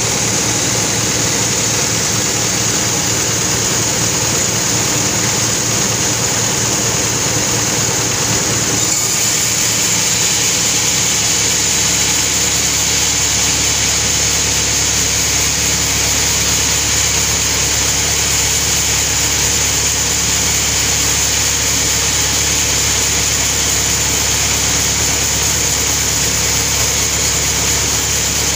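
Sawmill machinery running steadily, with the engine or motor sound continuous throughout. Its low tone changes about nine seconds in and then holds steady.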